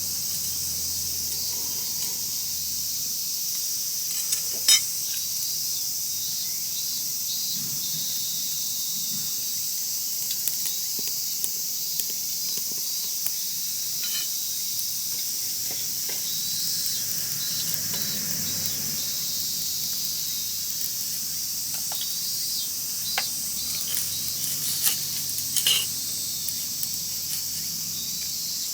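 Wood fire crackling, with scattered sharp pops (the loudest about five seconds in and again around twenty-five seconds), over a steady high hiss of water heating in a Nanbu cast-iron kettle and insects chirring.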